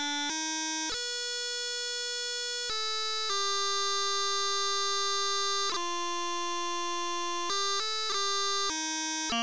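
Computer playback of a bagpipe tune from notation software: a slow melody of electronic pipe-chanter notes, some held for about two seconds and others short, each one starting cleanly on a new pitch.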